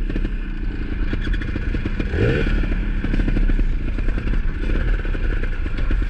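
Dirt bike engines running at low revs on a slow climb, with a short rev about two seconds in.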